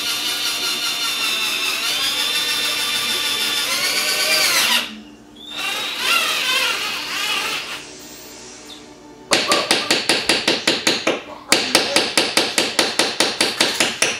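Power drill running at varying speed, its motor whine shifting and rising, then a rapid rhythmic clatter of about five or six pulses a second from about nine seconds in.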